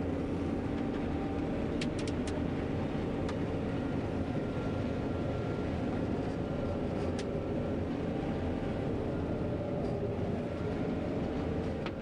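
John Deere 9500 combine running steadily while cutting soybeans: a constant machine hum with a few light ticks in the first few seconds and again about seven seconds in.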